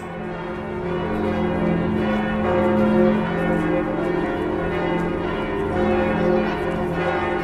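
Church bells ringing, a dense wash of many overlapping, lingering tones.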